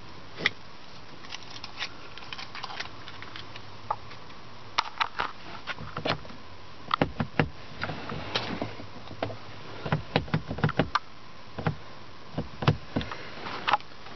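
Rear inside door handle of a 2009 Ford Escape pulled again and again, a string of clicks and clunks that comes thick and fast from about five seconds in. The door won't open because the child safety lock is engaged.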